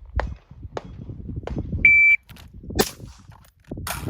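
Shot timer's start beep, one steady high tone about a third of a second long, about two seconds in. A gunshot follows under a second later, and another comes at the very end.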